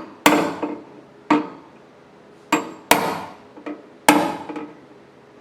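A body hammer tapping down a high spot in a thin sheet-metal door panel: five sharp taps at uneven intervals, each ringing briefly.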